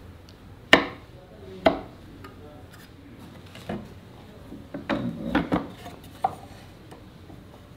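Sharp knocks and clatters of wooden pieces and hand tools being handled and set down. Two loud knocks come in the first two seconds, then a quicker run of them past the middle and one more near the end.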